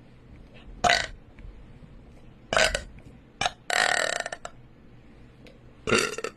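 A woman burping loudly several times in a row, about five separate burps, with the longest one in the middle.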